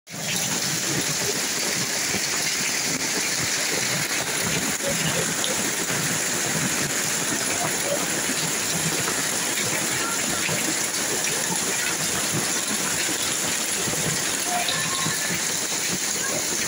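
Hailstorm with rain: a steady dense hiss of falling hail and rain, dotted with many small ticks of hailstones striking the ground and nearby surfaces.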